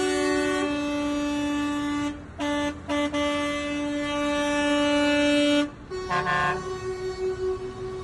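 Horns of a passing convoy of lorries and cars, held down in long overlapping blasts as a protest. The blasts break off briefly about two seconds in and again near six seconds, where a short toot sounds.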